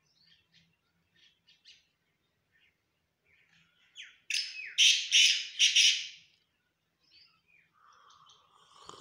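Black francolin calling from its cage. A few faint chirps come first, then about four seconds in a loud, harsh run of about four grating notes lasting about two seconds, followed by softer, scattered calls.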